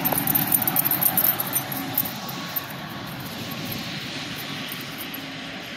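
Steady rushing noise of distant passing traffic, swelling about four seconds in and then easing off. Dense crackling clicks over the first two seconds.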